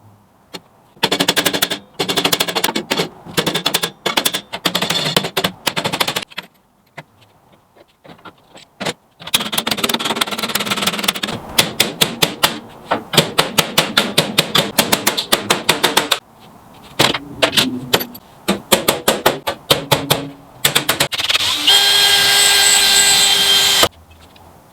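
Rapid metal hammering on the aluminium sheet of the tub, in stop-start bursts of quick strikes. Near the end about two seconds of a steady high whine from a spinning power tool.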